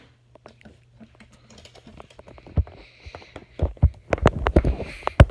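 Hands handling small toys and a miniature wooden cabinet: light clicks, taps and knocks with some rustling, sparse at first and busier and louder from about three and a half seconds in.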